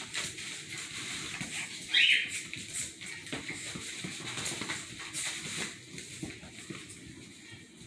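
Two small dogs play-fighting, with scuffling and rustling on a puppy pad and quick clicks throughout. About two seconds in comes one short, high yelp that rises in pitch, the loudest sound.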